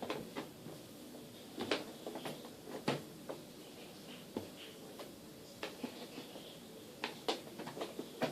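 Irregular light clicks and knocks of objects being handled, about ten in all, with the sharpest about a third of the way in and near the end.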